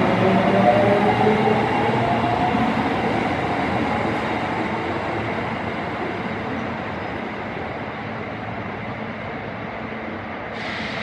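Osaka Metro Tanimachi Line 22 series subway train running on the line, its traction motor whine rising in pitch in the first few seconds. The running noise fades gradually as the train moves away.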